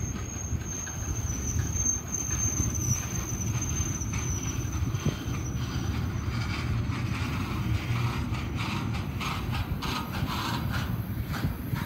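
Double-stack container train's well cars rolling past, a steady low rumble of wheels on rail. A thin high wheel squeal runs for about the first five seconds and fades, then irregular squeaks and short clanks from the trucks and couplings take over.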